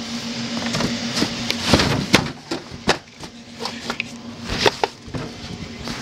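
Handling noise from a handheld camera being moved and swung about: irregular knocks, bumps and rubbing against the microphone, over a steady low hum.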